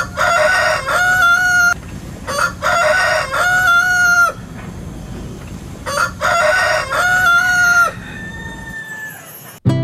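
A rooster crowing three times, each crow about two seconds long, with a fainter crow near the end.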